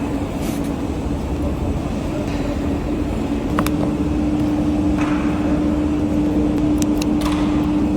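A steady mechanical hum with one constant low tone, with a few sharp clicks in the second half, typical of parts and tools being handled.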